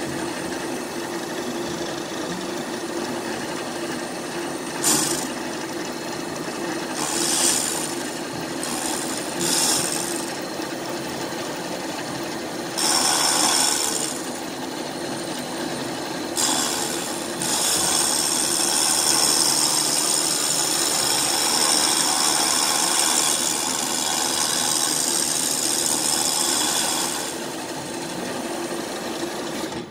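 Milling machine with an end mill cutting the combustion chamber of a cast-iron Ford Kent cylinder head. The spindle runs with a steady hum while the cutter scrapes the iron. The cutting gets louder and harsher in several short spells and through most of the second half.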